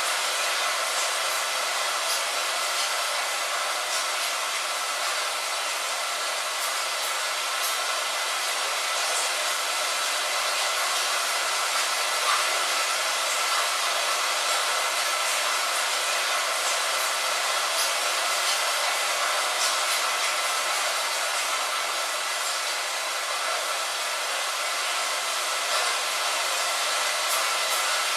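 Light rain on a window: a steady even hiss with scattered small drop ticks.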